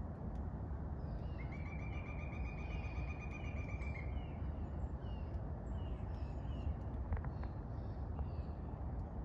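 Birds calling with short high chirps scattered throughout, over a steady low outdoor rumble. About a second and a half in, a high, even-pitched trill runs for about three seconds.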